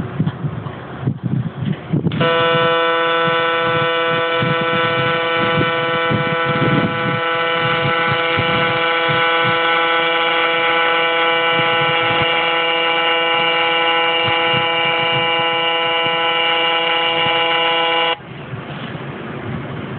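AC TIG welding arc on aluminium buzzing with one steady, unchanging tone. The buzz starts about two seconds in and cuts off suddenly about two seconds before the end, with uneven low rumbling noise before and after it.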